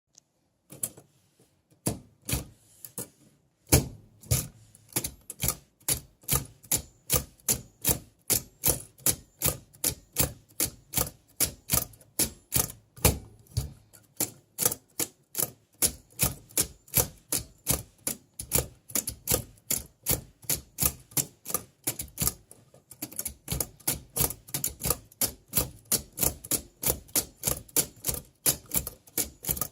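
Keys of an L.C. Smith & Corona manual typewriter being struck one after another, sharp clacks at about three a second, with a brief pause a little before the last quarter.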